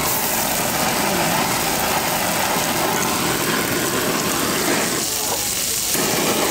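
Handheld butane torch flame hissing as it sears skewers sitting on a hot flat-top griddle, with the griddle sizzling beneath; the hiss dips briefly about five seconds in.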